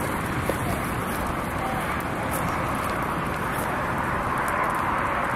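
Steady rushing noise of a grass and brush fire burning, with the sound of highway traffic swelling toward the end.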